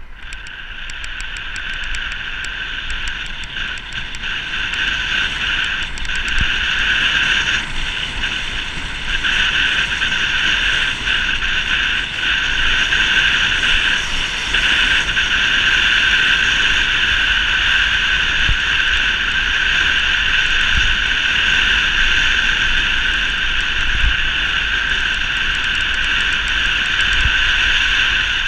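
Wind rushing over the bicycle-mounted action camera on a fast road descent, a steady roar that builds over the first several seconds as speed rises, with light, fast ticking in the first few seconds.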